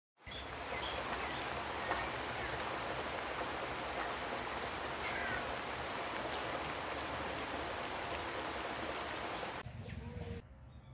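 A steady, even rushing hiss like falling rain, with a few faint bird chirps. It cuts off abruptly near the end.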